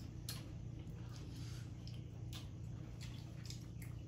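Quiet eating sounds: scattered faint clicks and soft mouth noises from chewing a bite of boiled egg, over a steady low hum.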